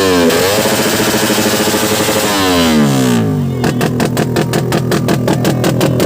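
Racing motorcycle engine revving high, with a quick drop in pitch near the start. The revs fall away about two and a half seconds in, and the engine settles into a lumpy low-rev idle with sharp pops about five times a second.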